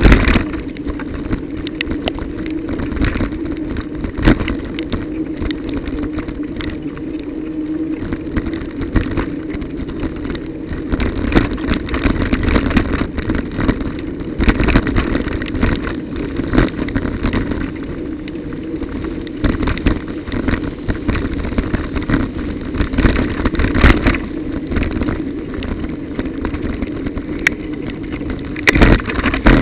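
A bicycle ridden over a broken, wet road surface, heard through a bike-mounted recorder: a steady noisy hum of riding and wind with irregular rattles and knocks from the bumps, the sharpest jolts right at the start and near the end.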